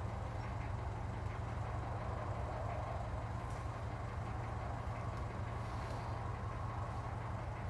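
A steady low mechanical hum with a noisy rush above it, as from a machine running without a break.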